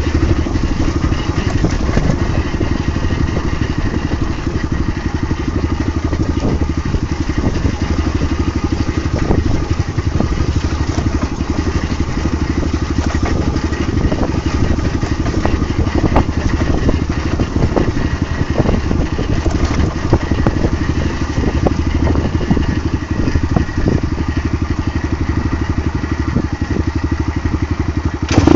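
Dirt bike engine running steadily at low revs while the bike jolts down a rough dirt trail, with frequent knocks and rattles from the bike and the handheld phone.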